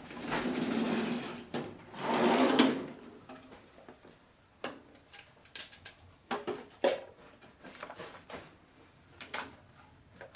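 Tool drawers sliding open and shut with a rattle, then scattered clicks and knocks of small tools being picked through.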